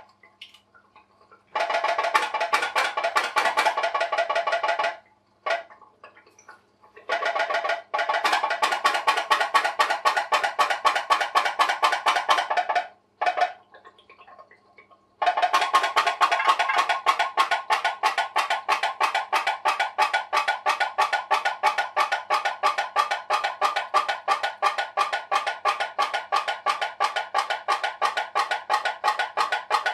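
Homemade pop-pop boat's steam engine popping with a fast, regular rhythm, its jam-jar-lid boiler with the security-popper button flexing in and out as water flashes to steam over a tea light. It pops in spurts, stops twice, then runs without a break from about halfway.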